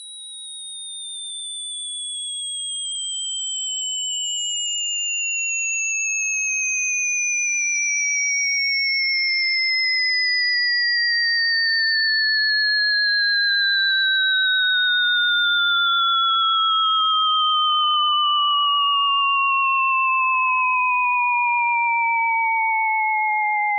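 Cartoon falling whistle sound effect: one pure whistling tone sliding slowly and steadily down in pitch from high to fairly low, swelling in loudness over the first few seconds.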